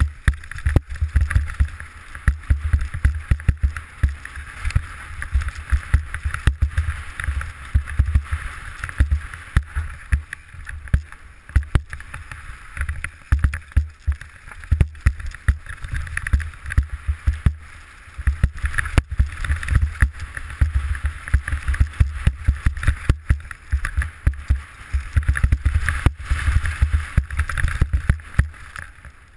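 Downhill mountain bike riding over a rough dirt and rock trail, heard from a helmet-mounted camera: wind buffeting the microphone with a low rumble, tyre hiss, and frequent sharp knocks and rattles as the bike hits bumps and rocks.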